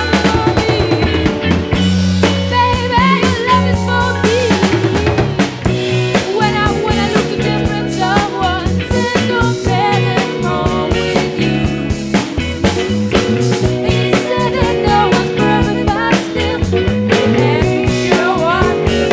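Rock band playing live, with a drum kit driving a busy beat on snare and bass drum under steady bass notes and bending melodic lines.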